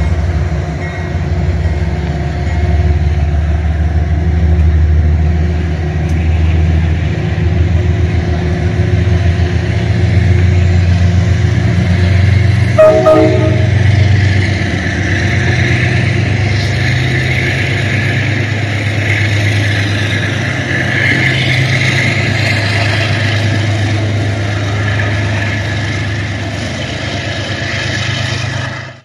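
Amtrak diesel passenger train pulling out of a station, with a deep steady engine drone and the rolling rush of the passenger cars going past. About halfway through there is a short horn blast.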